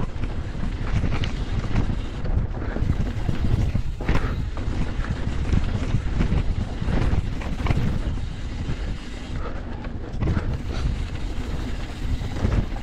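Wind buffeting the camera microphone and knobby tyres rumbling over a dirt singletrack as a YT Decoy electric mountain bike descends, with scattered knocks and rattles from the bike over bumps.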